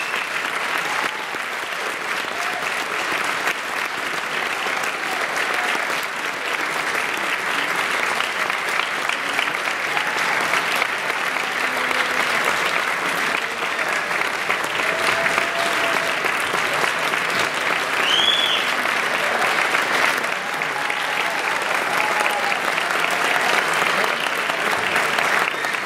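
Audience applauding steadily, a dense crackle of many hands clapping, with a few scattered cheers and one high whoop about two-thirds of the way through.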